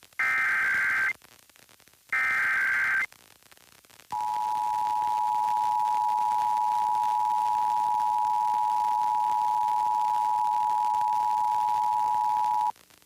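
Emergency Alert System broadcast: two one-second bursts of warbling digital SAME header tones, a second apart, followed by the EAS two-tone attention signal, a steady dual-tone buzz held for about eight and a half seconds. Together they announce a required monthly test.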